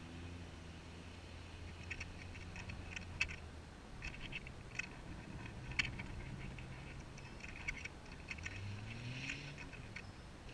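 Scattered faint ticks and short chirps, irregular and close together, over a low hum that fades about four seconds in and comes back near the end rising in pitch.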